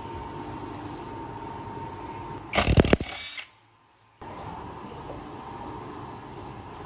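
A brief, loud half-second burst from a cordless power drill working at the motor's pulley, over a steady low background hum. The sound drops out for most of a second just after.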